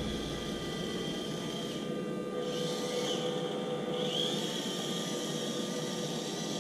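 Electric motor and geared drivetrain of an Imax 1/18-scale Jackhammer RC crawler whining steadily as it climbs a steep ramp under load. The pitch dips and rises briefly twice, near the middle and again a second later.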